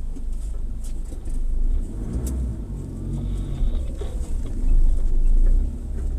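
Off-road 4x4 vehicle running with a low, steady rumble that gets louder for about a second near the end.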